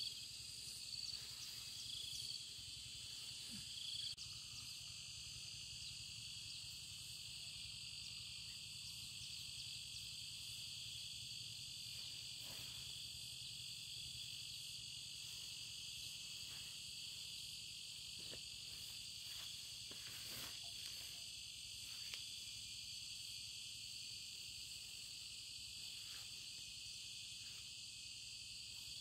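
Steady insect chorus: a shrill, high, continuous buzz made of several tones layered together, with a few faint rustles in the middle.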